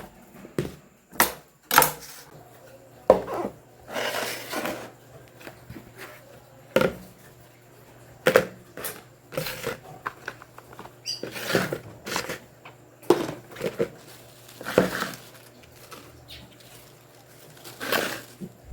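Irregular knocks, clicks and short rustling swishes of household items being handled and set down on a table.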